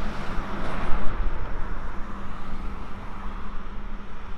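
Wind noise buffeting the microphone, rough and uneven, with a faint steady low hum underneath.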